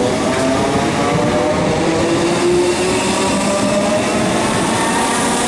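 Southern Class 313 electric multiple unit pulling away from a station platform, its traction motors humming in several tones that slowly climb in pitch as it gathers speed, over the rumble of the wheels on the rails.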